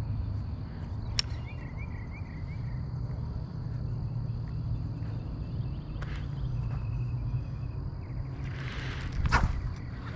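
Outdoor ambience: a steady low rumble and a thin, steady high-pitched whine, with a short trilling call about one and a half seconds in. About nine seconds in comes a quick swish ending in a sharp click, the loudest sound.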